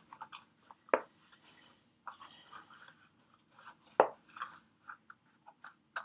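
Stiff cardstock box flaps being worked and tucked in by hand: light crinkling and rubbing of the paper, with two sharper snaps, about a second in and about four seconds in.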